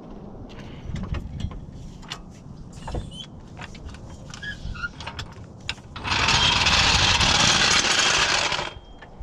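A few light clicks and knocks, then compressed air hissing steadily into the plugged tire through an air chuck for about two and a half seconds before cutting off sharply.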